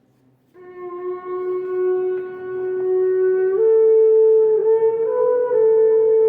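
Animal horn (cuerno) blown in one long call that starts about half a second in on a low note, jumps up to a higher note partway through, wavers briefly, then holds. It is sounded as a signal announcing the mourning of Jesus Christ.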